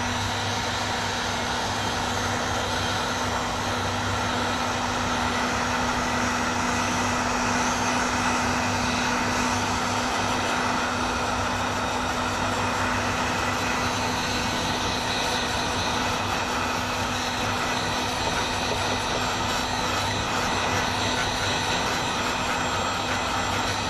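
Heat gun running steadily, its fan blowing hot air with a rush of air over a steady motor hum, shrinking heat-shrink tubing onto a coil spring.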